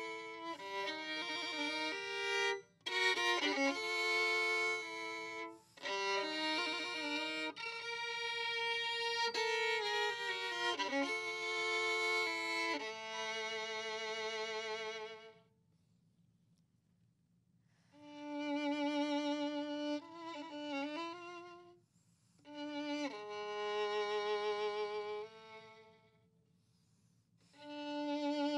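Solo violin playing slow phrases, often two notes at once, with vibrato on the held notes. It breaks off twice for a couple of seconds between phrases.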